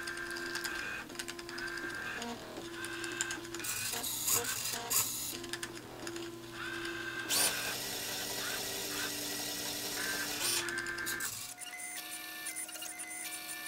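Motors of a home-built Turing machine whining in short stop-start runs as they drive the paper tape and work the marker and eraser heads, with a longer hissing stretch in the middle. Near the end the whine changes to steadier, higher tones as the footage is sped up sixfold.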